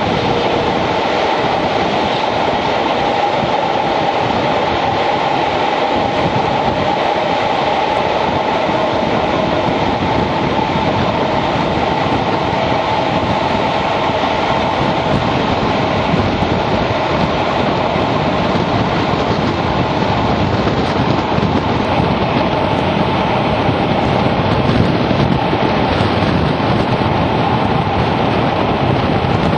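Class 52 'Western' diesel-hydraulic locomotive D1015 hauling its train at speed, its twin Maybach engines working hard together with steady wheel-on-rail clatter from the carriages, heard through an open carriage window.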